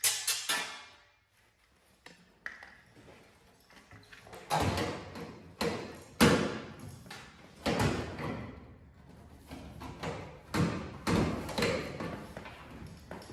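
Sheet-metal patch panel being handled and knocked into place against a car's quarter panel: a series of irregular thumps and metallic clanks, some ringing briefly, coming thicker from about four seconds in.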